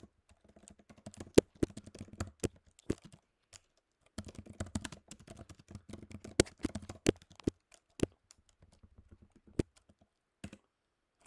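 Typing on a computer keyboard: two runs of quick keystrokes with a short break between them, then a few single keystrokes that stop shortly before the end.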